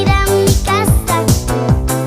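Upbeat electronic background music with a steady beat: a falling bass hit about three times a second under a wavering synth melody.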